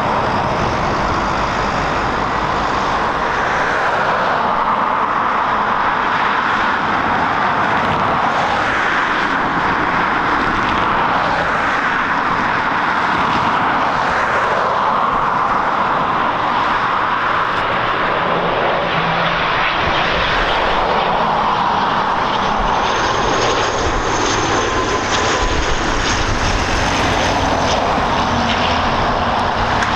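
Twin turboprop engines and propellers of an ATR 72 airliner running steadily on final approach. Near the end a high whine rises and then fades as the aircraft comes in low over the runway.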